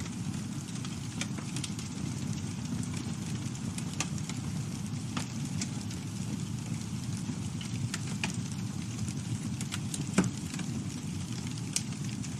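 Campfire burning: a steady low rumble of flames with scattered crackles and pops of burning wood, one louder pop about ten seconds in.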